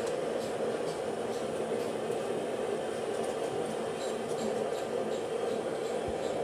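A steady machine noise, unchanging in level, with faint light ticks over it.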